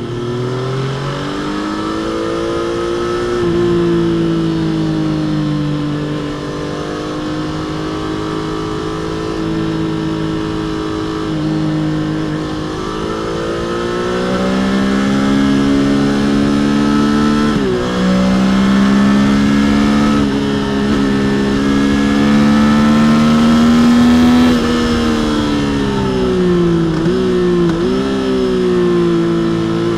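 Stock Triumph Trident 660 inline-three engine and exhaust under way, its pitch climbing and easing with the throttle. The pitch drops sharply about eighteen seconds in and twice more near the end.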